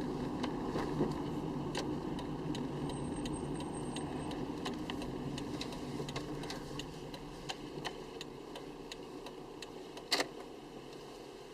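Car's road and engine rumble heard from inside the cabin, fading steadily as the car slows down, with scattered small clicks and rattles and one sharper knock near the end.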